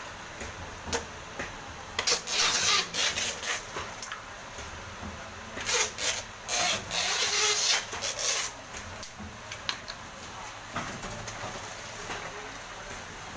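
Center-seal vertical oil-pouch packing machine running, with occasional sharp clicks. Two stretches of loud rasping, rubbing noise come about two seconds in and again about six to eight and a half seconds in.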